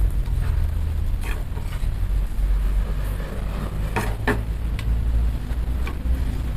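Steady low rumble, with a few sharp taps about a second in and a cluster around four seconds in: a flat wooden spatula knocking against gözleme flatbreads and the metal top of a wood-burning stove.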